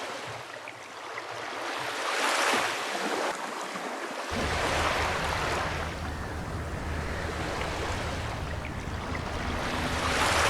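Sea waves washing onto a beach, swelling about two seconds in and again near the end. A low rumble joins about four seconds in.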